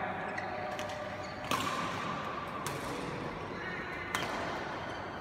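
Badminton rackets striking the shuttlecock in a rally: three sharp hits, each about a second and a half apart, echoing in a large hall.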